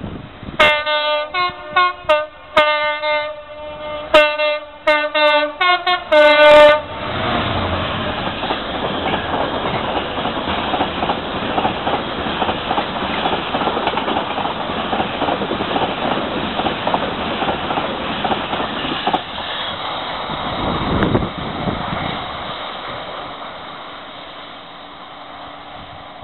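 Class 66 diesel locomotive sounding its horn in a run of short blasts for about six seconds. A long train of flat wagons loaded with rails then runs past, wheels clattering on the track, and the noise fades away near the end.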